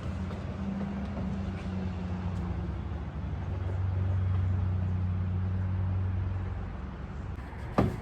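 A low, steady motor hum, like an engine running, swelling in the middle and fading near the end, with a sharp click just before the end.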